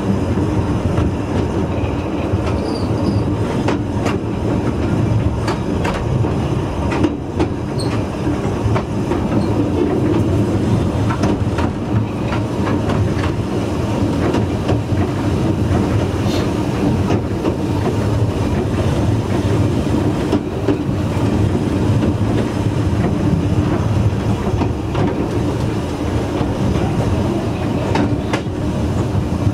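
A narrow-gauge railway coach running along the track, heard from the rear coach: a steady rumble of wheels on rail, with scattered clicks from the rail joints.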